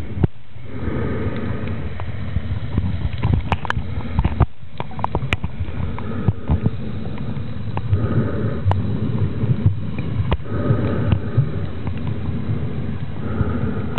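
Water noise picked up by a camera held underwater while snorkelling: a muffled, steady rush and rumble with many scattered sharp clicks and ticks, swelling louder every few seconds.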